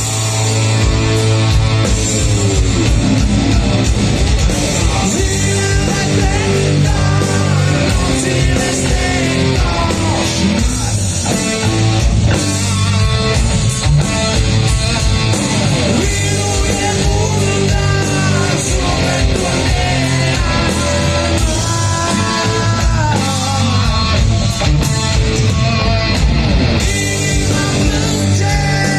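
A rock band playing loud live music: distorted electric guitars, bass and drums, with a lead melody that bends and slides on top.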